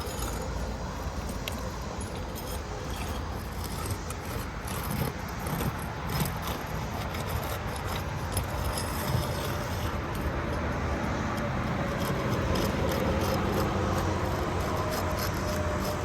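Asphalt roof shingles being pried and unsealed from one another: irregular scraping, crackling and small metallic clicks as the sealant strips let go, over a steady low rumble.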